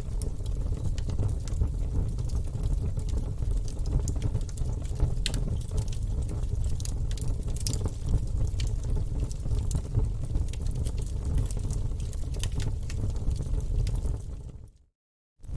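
Wood fire burning in a fireplace: a steady low rumble of flames with scattered crackles and pops from the logs. Near the end it fades out to silence for about half a second, then starts again.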